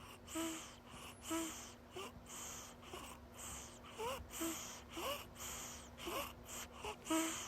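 Quick, noisy breathing, about two breaths a second. Many breaths carry a short squeaky, whistle-like tone that rises or falls in pitch.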